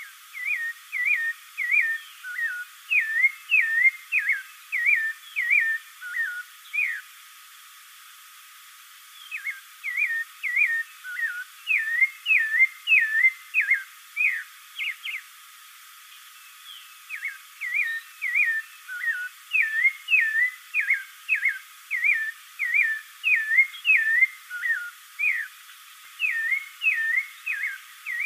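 Spectacled thrush (caraxué) singing: a run of short, clear whistled notes, some rising and some falling, about two a second. The song comes in three bouts, with short pauses about seven and fifteen seconds in.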